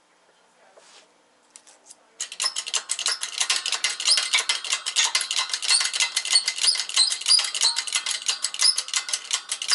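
Control arm bushing being forced out of a MK4 Volkswagen control arm by a bottle-jack shop press. About two seconds in, a loud, dense crackle of rapid clicks with high squeaks sets in and keeps going.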